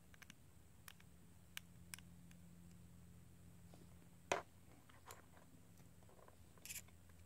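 Near silence with a few faint clicks and taps from a small precision screwdriver and other small hand tools against a phone's metal frame and a plastic repair mat. One sharper click comes a little past four seconds in and a short rustle near the end, over a low steady hum.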